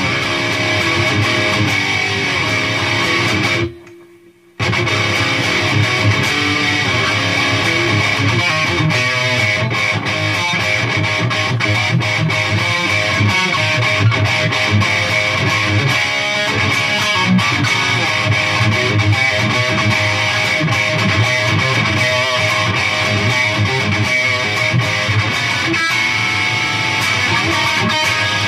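Electric guitar riffs played through a Peavey Triple XXX II tube amp head and speaker cabinet, with one brief stop about four seconds in.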